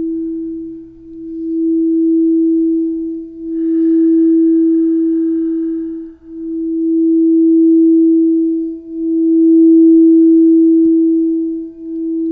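Singing bowl sounding one steady, pure note, swelling and fading in long waves every two and a half to three seconds.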